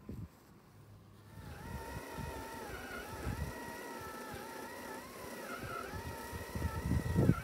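EcoFlow Blade robot lawnmower's electric motors whining as it drives across the grass, the pitch rising and falling as it moves. The whine starts about a second and a half in, over an uneven low rumble that grows loudest near the end.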